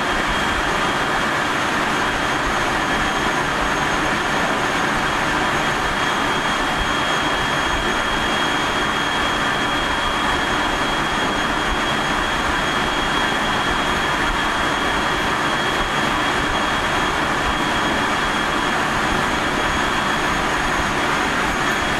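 JR 373-series electric multiple unit running at a steady speed, heard aboard motor car KuMoHa 373-11: steady rail and rumble noise with a steady high whine from its MT68 traction motors and gearing. This car is known for an unusually strong abnormal running noise.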